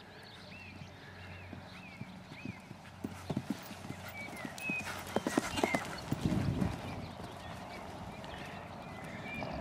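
A pony's hooves cantering on a sand arena, the beats growing louder from about three seconds in, with heavier thuds around six seconds in as it jumps a fence and lands.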